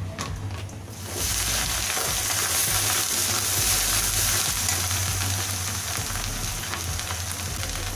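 Ginger-garlic paste frying in hot mustard oil and onions, sizzling as it is stirred with a spatula; the sizzle flares up about a second in and then stays steady.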